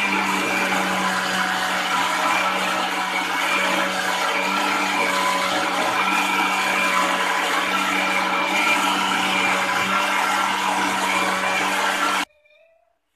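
Electric blender running steadily, its motor humming at a constant pitch as it churns a wet chilli paste, then cutting off abruptly about twelve seconds in.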